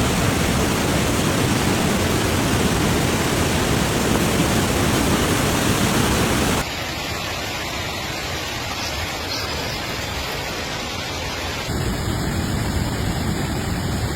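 Steady rushing noise of heavy rain and floodwater. It drops abruptly in level about halfway through and comes back up near the end.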